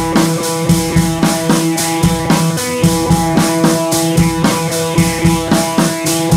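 Background music with a steady drum beat and held instrumental tones.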